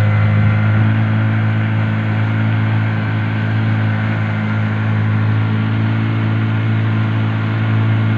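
An engine running steadily at an even speed, a loud low hum whose pitch does not change.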